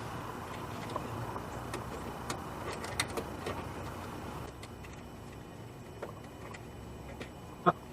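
Faint handling sounds of hands working with tools and parts: scattered small clicks and taps over a steady low hiss that drops away about halfway, and a brief vocal sound shortly before the end.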